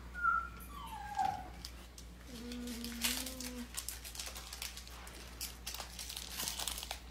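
Foil Pokémon booster pack crinkling and tearing as it is opened by hand, with dense crackling through the second half. Earlier there are two short whining tones falling in pitch, then a steady low hum lasting just over a second.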